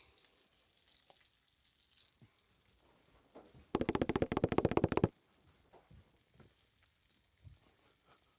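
A sandwich frying in butter in a pan over a gas burner, sizzling faintly. A little past the middle comes a rapid rattle of many quick clicks lasting about a second and a half, from an unseen source.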